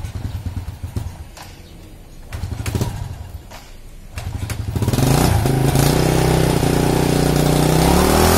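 Honda Astrea Grand motorcycle's four-stroke single-cylinder engine being kick-started from cold in the morning. Two kicks turn it over briefly without catching; on the next it fires about four seconds in and settles into a steady idle.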